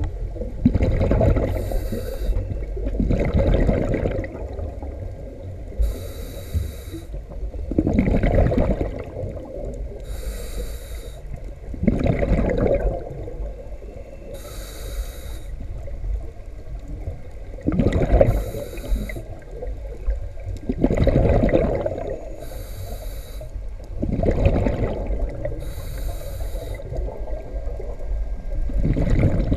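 A scuba diver breathing through a regulator underwater, about seven slow breaths: each exhale is a loud gurgling rush of bubbles and each inhale is a high hiss from the regulator.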